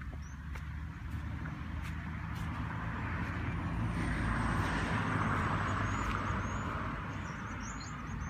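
Motor vehicle engine running steadily with a low hum, a rushing noise swelling in the middle and easing off. Faint high chirps come near the end.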